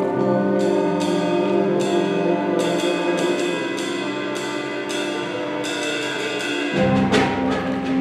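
School concert band playing: woodwinds and brass sustain chords under a series of evenly spaced high notes, and the lower instruments come back in with a fuller sound near the end.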